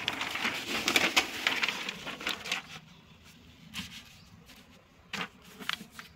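A newspaper sheet rustling and crinkling as it is spread out in a drawer, then a few soft brushes and taps as a hand smooths it flat. The rustling is loudest over the first couple of seconds.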